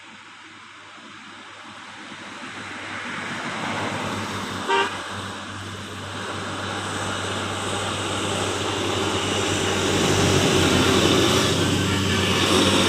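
A bus approaching on the road, its engine and tyre noise growing steadily louder, with one short horn toot about five seconds in.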